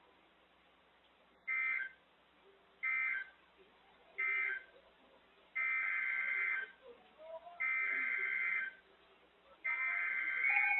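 Emergency Alert System SAME data bursts. Three short end-of-message bursts close one alert, then three longer header bursts, about a second each, open the next warning. A steady electronic alert tone starts right at the end.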